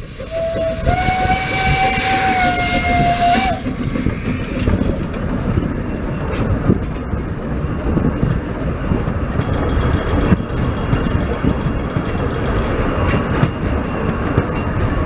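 Narrow-gauge steam locomotive blowing its whistle for about three seconds, one steady note that steps up slightly in pitch after a second, over a loud hiss of steam. Then the locomotive and its wooden carriages roll past with a steady rumble and clatter of wheels on the rails.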